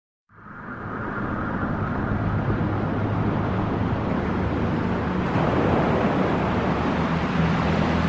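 Trance background music opening: a swelling whoosh of noise over held low synth notes, fading in within the first second and growing brighter about halfway through.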